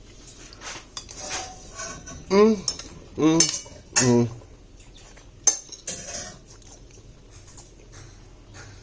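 A spoon or other cutlery clinking and scraping against a plate in scattered sharp clicks, with three short vocal sounds around the middle, each rising and falling in pitch.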